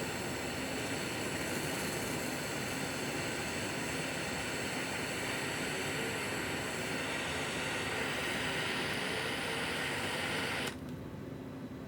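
Small handheld gas torch burning with a steady hiss while heating a battery connector for soldering; the flame cuts off abruptly near the end.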